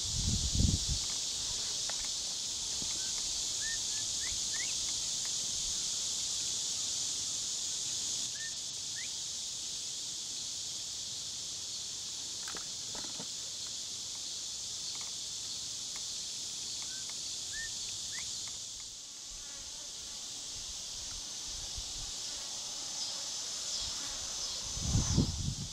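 A steady high drone of insects calling from the grass, with a few faint short bird chirps. Low bumps on the microphone about half a second in and again near the end are the loudest sounds.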